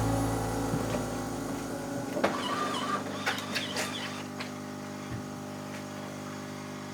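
Background music fading away as its held tones die down. Between about two and four seconds in there is a brief cluster of light clicks and clinks.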